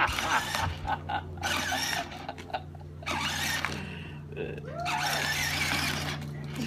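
Battery-powered toy ATV's electric motor and plastic gearbox whining steadily as it drives, with its plastic wheels grinding over dirt.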